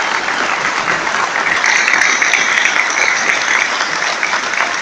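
A large seated audience applauding, many hands clapping steadily.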